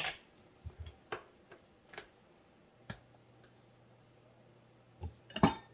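Scattered light clicks and taps from handling a measuring spoon and a pepper container while measuring pepper, with a louder knock near the end. A faint low hum comes in about three seconds in.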